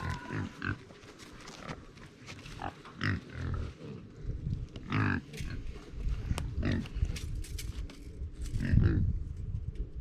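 Pigs grunting, a series of short grunts with a longer, louder one near the end.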